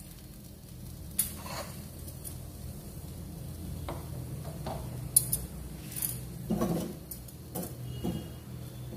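Scattered clicks and metal clinks of tongs against a wire roasting grate as charring tomatoes are turned over a gas flame, the sharpest click about five seconds in, over a low steady hum.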